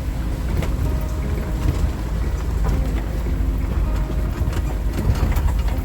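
Suzuki SJ410's small four-cylinder engine running as the 4x4 drives along, a steady low rumble with engine tones and scattered knocks and rattles from inside the vehicle.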